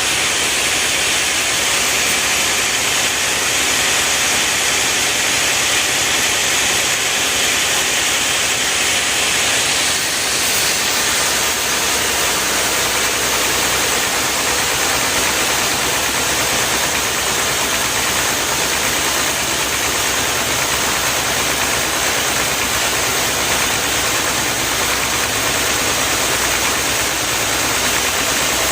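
Powered log-cutting machinery running steadily: an even, unbroken mechanical noise with no pauses.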